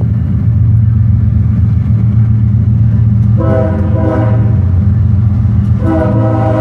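A Ferromex locomotive's Nathan Airchime K5HL five-chime air horn sounds two blasts of a rich multi-note chord over a steady low rumble. The first blast comes about halfway through and lasts about a second; the second starts near the end.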